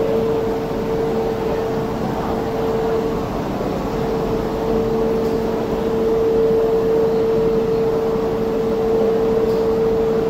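Steady machinery hum with one constant mid-pitched tone over a low rumble, in the Ocean Express funicular station.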